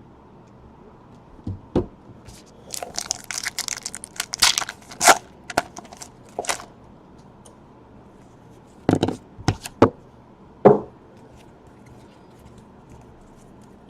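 Wrapper of a trading-card pack being torn open and crinkled, then several sharp knocks and snaps about two-thirds of the way in.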